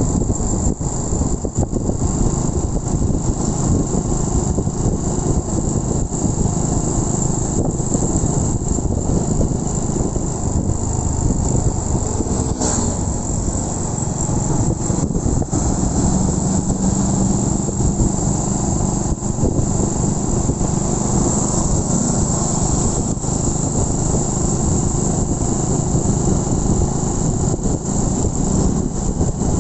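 Honda Win 100 motorcycle ridden at light throttle: its engine runs steadily under a loud, constant rush of wind over the microphone.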